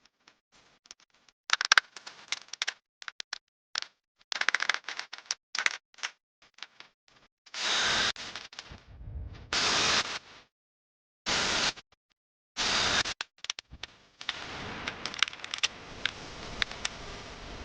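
A run of crackling, clicking and scraping noises, then several short bursts of hiss-like noise that start and stop abruptly, followed by a steadier hiss with scattered clicks.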